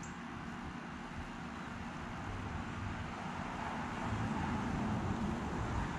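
Distant road traffic: a steady low rumble that swells gradually through the middle and peaks about five seconds in, as a vehicle passes.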